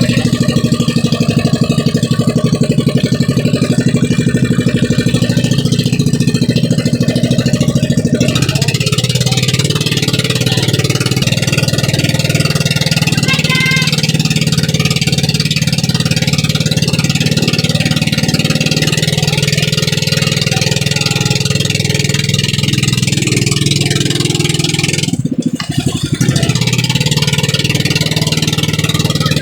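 Engine of a motorized outrigger fishing boat (pambot) running steadily under way. The engine note changes slightly about eight seconds in, and the sound dips for a moment near the end.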